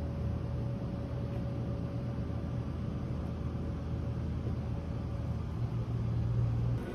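Steady low rumble of street background noise with a faint constant hum, unbroken throughout.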